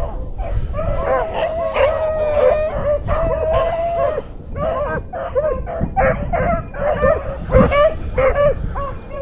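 A pack of rabbit hounds baying without a break as they run a rabbit's trail: many voices overlapping in short chop barks, with a few long drawn-out howls about two and three seconds in.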